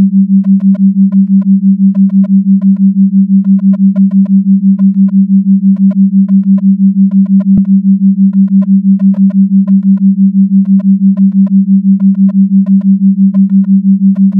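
Steady electronic tone near 200 Hz, pulsing on and off about six times a second: a 6 Hz pulsed tone. Faint short higher blips are scattered over it, with a single click about halfway through.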